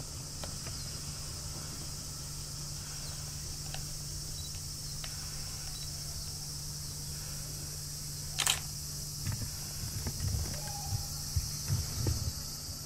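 Steady high-pitched drone of a cicada chorus over a low steady hum. About eight seconds in comes a sharp click, then a run of low bumps and thumps from the camera being handled as it moves.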